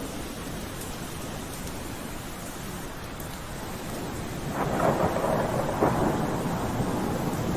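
Steady rain, joined about halfway through by a roll of thunder that makes the sound louder and rougher, with a couple of sharp cracks in it.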